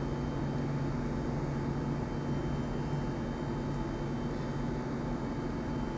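Steady low machine hum with an even background noise, unchanging throughout.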